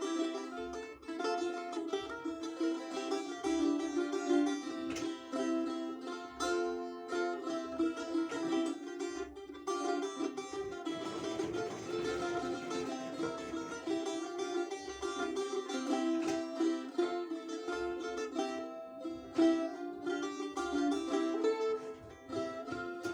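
Balalaika being played as a folk tune: a continuous run of plucked and strummed notes, with a denser stretch of fast strumming near the middle.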